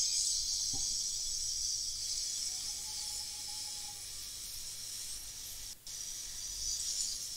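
Hot air rework station blowing a steady hiss while the Super I/O chip's pins are reflowed, with a momentary break about six seconds in.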